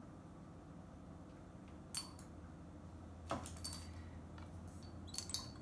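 A few light clinks and taps of brush and tool handles against small glass paint jars: one about two seconds in, then a cluster near the end. A low steady hum runs underneath.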